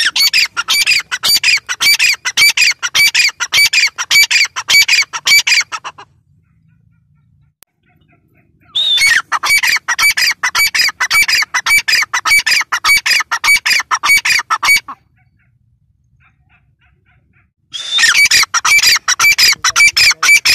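Grey francolin calling: three long runs of loud, rapidly repeated high notes, each run lasting about six seconds, with short pauses between them.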